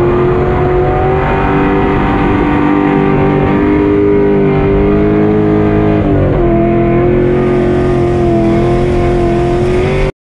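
Nissan S13 drift car's engine heard from inside the cabin, held at high revs through a drift, with a brief dip in revs about six seconds in. The sound cuts off abruptly near the end.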